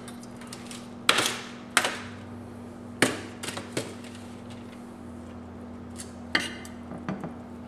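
Metal serving spoon clinking and scraping against a foil-lined sheet pan and a ceramic plate while roasted vegetables are scooped and served. There are about half a dozen sharp clinks, the loudest about one and three seconds in, over a faint steady hum.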